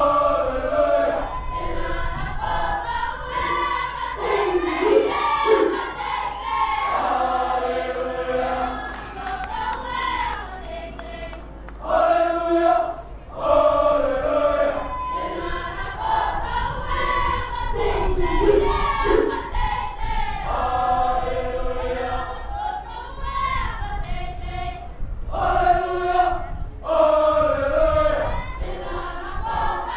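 A mixed student choir singing a Cook Islands imene tuki, a hymn in close harmony by many voices together.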